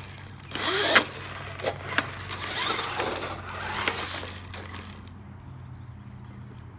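Radio Shack Golden Arrow RC car's electric drive motor and gears whirring in short bursts as the throttle is worked: a brief burst about half a second in, then a longer run from about two to four seconds. It runs on 18650 cells that are thought to be nearly flat, so it is slower than it should be.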